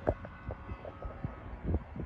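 Freight cars of a manifest train rolling past, with a run of irregular knocks and clunks from the wheels and cars over the rail.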